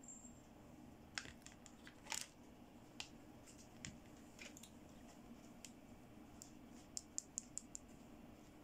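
Faint, scattered light clicks and taps of small plastic toy accessories being handled, ending with a quick run of about five clicks, over a low steady hum.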